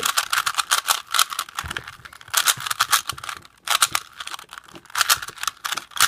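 3x3x3 Rubik's Cube being scrambled by hand: its plastic layers are turned fast, giving rapid clicking and clacking in quick runs with short breaks.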